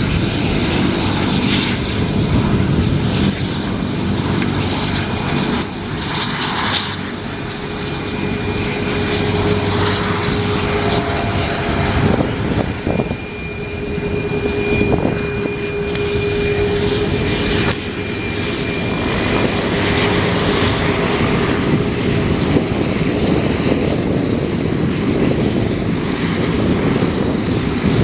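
An airplane's engines running loudly and steadily, with a steady whine through the middle.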